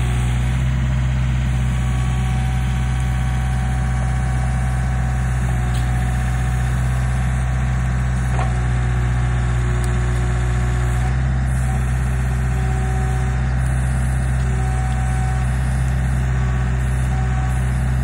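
John Deere backhoe loader's diesel engine running steadily with a deep, even drone and no change in speed.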